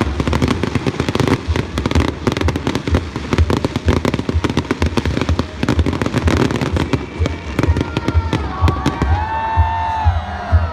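Fireworks display: a dense, rapid run of bangs and crackling bursts that thins out near the end, where a few gliding tones sound.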